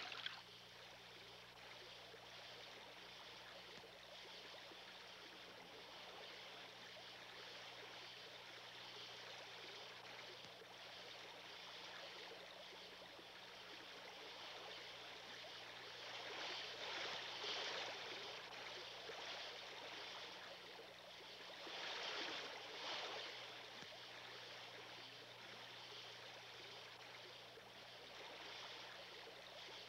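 Faint, steady rush of a shallow stream running over gravel, swelling louder twice in the second half.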